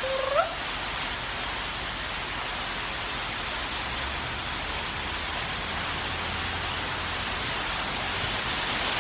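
Steady heavy rain falling, an even hiss. A brief rising chirp sounds at the very start.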